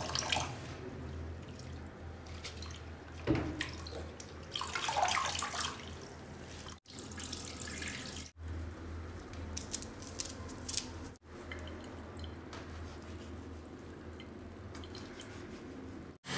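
Water splashing and trickling in a stainless-steel kitchen sink as chopped leafy greens are rinsed in metal bowls and the rinse water is poured off through a strainer. A few light clicks come about two-thirds of the way through.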